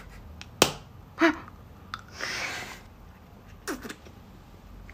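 Sharp snapping pops of a round strawberry gummy candy being bitten at the mouth: three sudden snaps, the loudest about half a second in, with a breath between them.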